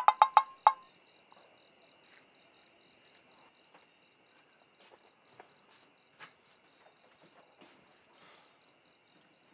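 A quick run of plinking notes, the tail of a comic cartoon sound effect, dies away within the first second. After it, a steady chorus of crickets trills, high and evenly pulsing, with faint scattered ticks.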